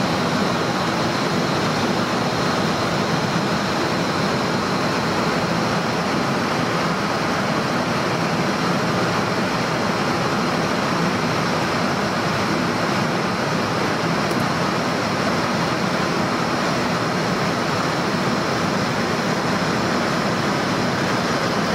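Steady rushing noise on an airliner flight deck in cruise, the airflow and air-conditioning noise of the cockpit, with a faint steady high whine.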